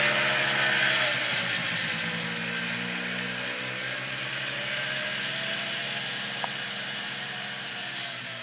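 Two ATV engines running as the quads ride away, the pitch wavering and the sound fading steadily as they go. A single sharp click about six and a half seconds in.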